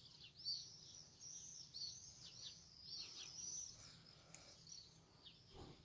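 Faint, high chirping of small birds in flight overhead: many short calls in quick succession.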